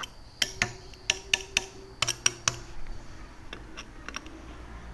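A metal tool tapping the spokes of a Sur Ron electric dirt bike's wheel one after another: about eight sharp metallic pings in the first half, some leaving a short ring, then a few fainter taps. The pitch and ring of each spoke are the check of its tension; a tight spoke rings, a loose one sounds dead.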